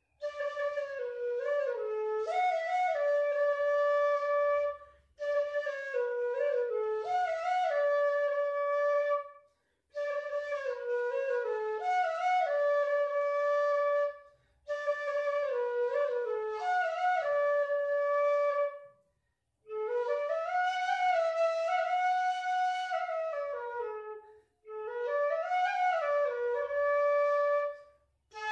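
Background music: a solo flute melody played in six short repeated phrases, each about four to five seconds long, with brief pauses between them.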